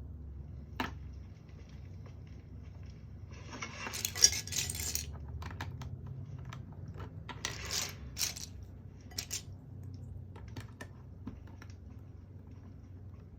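Small hard objects clattering and clinking: a few scattered clicks and two bursts of rattling, the first about three seconds in and the second near the middle, over a steady low hum.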